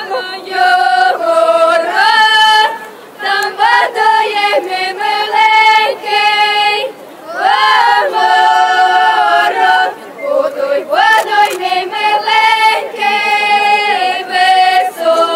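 A group of women and girls singing a Ukrainian folk song together in long held notes that slide from one pitch to the next, with short breaks between the phrases.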